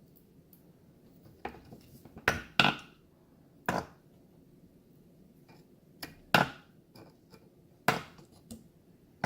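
Irregular sharp taps and clacks of small tools and parts being handled and set down on a workbench, about eight in all, some with a brief ring.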